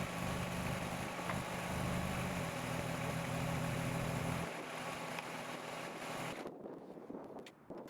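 Kubota BX sub-compact tractor's diesel engine running steadily, then cutting out about four and a half seconds in; the remaining noise dies away shortly after, leaving a few small clicks.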